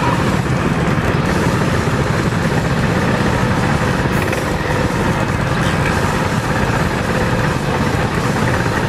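Mini bike engines running steadily: the small engine of the bike being ridden, close under the handlebars, with several other mini bikes running just ahead.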